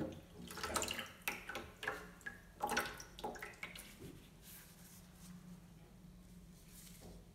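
Liquid splashing and dripping in a plastic tub as a rusty steel trowel is lifted out of its rust-remover soak and turned over. There is a run of splashes through the first four seconds, then it settles.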